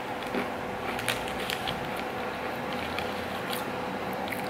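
A few faint, scattered crackles from eating edamame senbei rice crackers: crunchy cracker bites and the crinkle of the foil snack wrapper being handled, over a steady faint hum.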